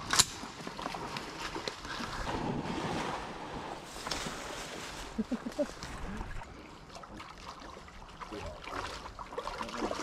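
Wind buffeting the microphone over faint water sloshing and rustling, with one sharp crack right at the start and a brief low call about halfway through.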